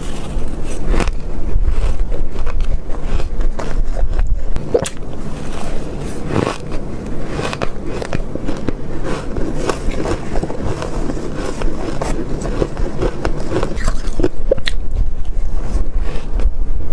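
Close-miked chewing of soft shaved ice: a dense run of small crisp crunches, with a few sharper crunches among them, as spoonful after spoonful is bitten and chewed.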